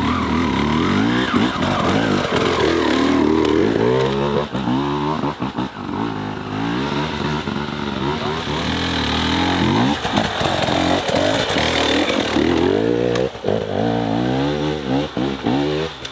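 Enduro dirt bike engine revving up and falling back again and again, the throttle blipped and chopped off sharply several times as the bike works over steep, rough ground.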